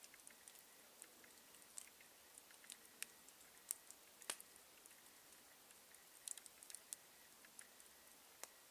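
Campfire crackling: scattered faint pops and snaps of burning wood at an uneven pace, with a few sharper pops about three to four seconds in.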